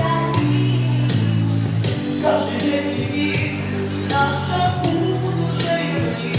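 Vocal ensemble singing a pop song over instrumental accompaniment with a steady drum beat.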